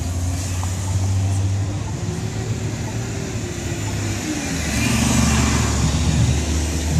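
Street traffic with a city bus driving close past, its engine running with a low hum. The engine and road noise grow louder about two-thirds of the way through as the bus goes by.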